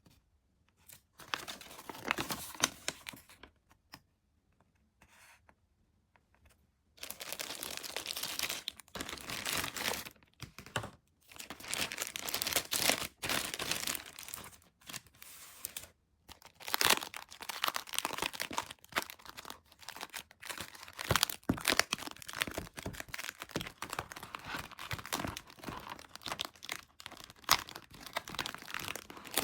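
Toy packaging being handled and torn open: crinkling and tearing of wrapping. Sparse bursts at first, then near-continuous crinkling and tearing from about seven seconds in.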